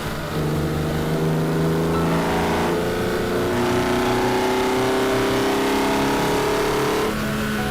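BMW E46 M3's inline-six engine accelerating: its pitch climbs, drops at a shift about three and a half seconds in, then climbs slowly again before cutting off about seven seconds in.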